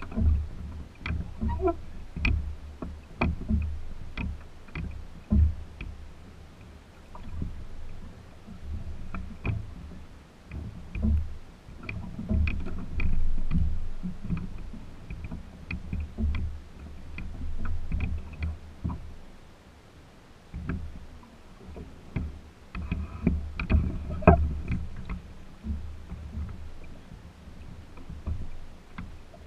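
Small wooden sailboat under way: water swishing along the hull with an uneven low rumble that swells and fades, and scattered clicks and knocks from the boat's fittings and rigging.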